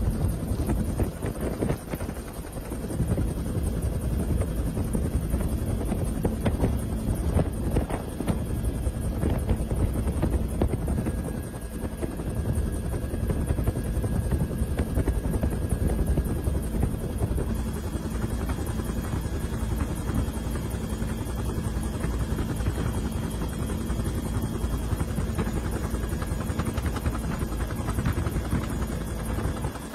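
Helicopter engine and rotor noise heard from aboard the aircraft, a steady drone.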